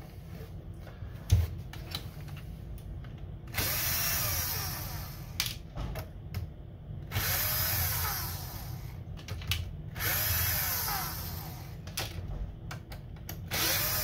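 A cordless electric screwdriver backs screws out of an Xbox Series X case in four short runs. Each run's whine rises, then falls in pitch. Small handling clicks and a thump come between the runs.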